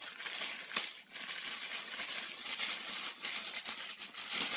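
Plastic postal mailer crinkling and rustling continuously as it is slit open with a knife and handled, with small ticks and scrapes along the way.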